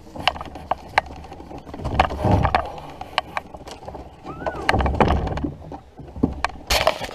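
Handling noise from a carried action camera with footsteps over dry leaves: irregular clicks, knocks and rustles, with a couple of low rumbles.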